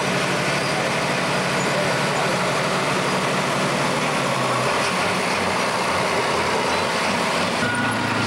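Diesel engine of a Ford 8210 super stock pulling tractor idling after a pull, its low note shifting a little about halfway. Near the end it changes to another tractor engine idling.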